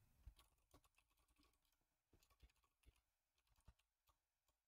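Faint, irregular keystrokes on a computer keyboard: typing.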